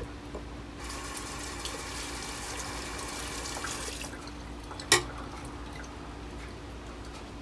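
A steady rush of running, water-like noise for about three seconds, then a single sharp click about five seconds in, over a low steady hum.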